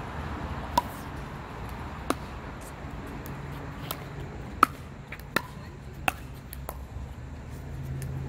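Pickleball rally: the perforated plastic ball struck back and forth by paddles, a series of sharp pops, about seven in six seconds, the loudest about halfway through.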